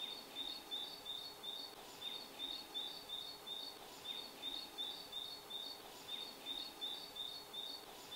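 Outdoor countryside ambience: a long run of short, high chirps, about four or five a second, in runs broken by brief gaps every couple of seconds, over a faint hiss.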